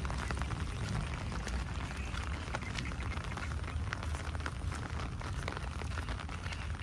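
Heavy rain falling: a steady hiss thick with sharp, close drop ticks, over a continuous low rumble.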